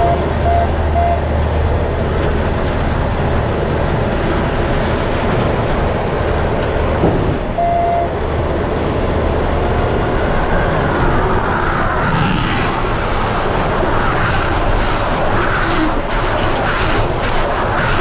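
John Deere 6155R tractor's six-cylinder diesel running steadily under load, heard from inside the cab, with the JD C440R baler-wrapper working behind it. Four short electronic beeps come near the start and one longer beep about eight seconds in. From about twelve seconds in, more rattling and clatter sound over the engine.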